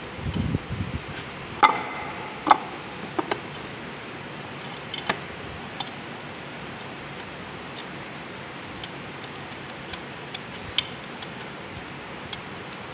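Metal clinks and taps from steel lathe slide parts, nut and spanners being handled during assembly: a few soft thumps at the start, two louder ringing clinks within the first few seconds, then scattered light ticks.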